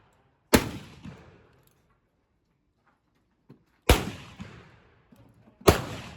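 Three black powder revolver shots, unevenly spaced: one about half a second in, one about four seconds in and one near the end. Each sharp report trails off in an echo.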